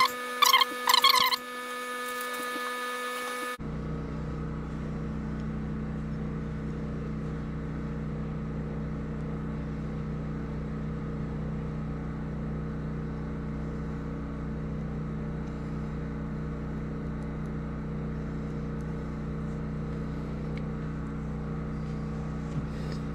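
A few short, high squeaks in the first second and a half, then a steady low machine hum that switches on abruptly about three and a half seconds in and runs evenly, with a couple of faint clicks near the end.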